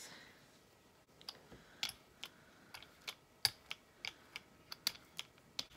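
Brayer rolling green acrylic paint across a puzzle-piece gel printing plate, with a dozen or so sharp, irregularly spaced light clicks and taps.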